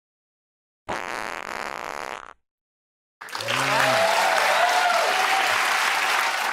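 Wet, spluttering fart sound effects: a short one about a second in that cuts off abruptly, then a longer, louder one starting about three seconds in, with a low buzz rising and falling in pitch.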